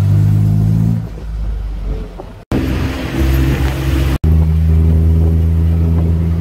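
Tuk-tuk engine running steadily as it drives along, heard from the open passenger cab. The engine note shifts between short clips, with abrupt cuts about two and a half and four seconds in.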